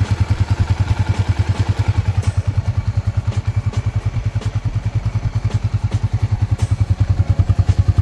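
Suzuki Raider R150 Fi's single-cylinder four-stroke engine idling on its stand with an even, rapid pulsing beat, a little louder near the end. The engine has just been fitted with a KSR bore kit and a new cylinder head.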